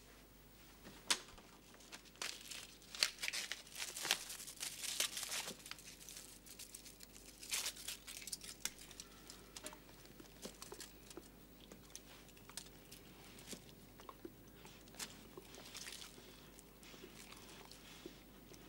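Crinkling, crackling and tearing from something being worked in a person's hands, in a dense run of sharp crackles over the first few seconds that then thins out to scattered ones.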